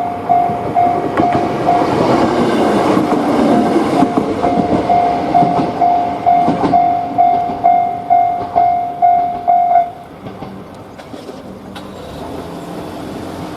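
Japanese level-crossing warning bell ringing its repeated "kan-kan", about two strikes a second, while a train passes with wheels clattering over the rail joints. The bell stops about ten seconds in, leaving a quieter steady rumble.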